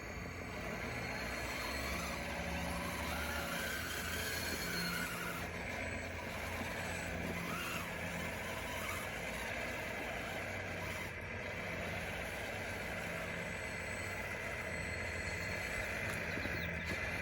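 Radio-controlled construction machine working: a steady mechanical drone with low tones that come and go, and short rising and falling motor whines as it speeds up and slows.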